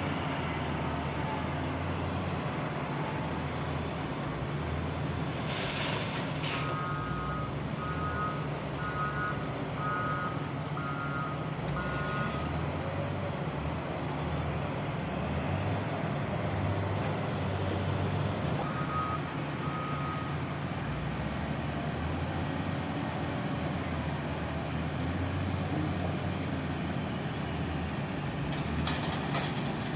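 Heavy road-construction vehicle's diesel engine running steadily, with its reversing alarm beeping about once a second in a run of seven or eight beeps about a fifth of the way in, and again briefly past the middle. A short hiss comes just before the first beeps.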